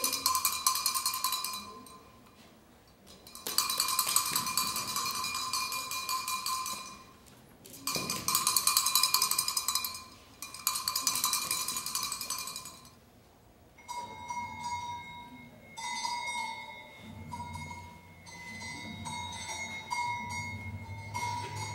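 A hand-held metal bell, like a cowbell, is shaken hard in four bursts of a few seconds each with short pauses between, ringing fast and bright. In the last third come quieter, separate ringing strikes over a low hum.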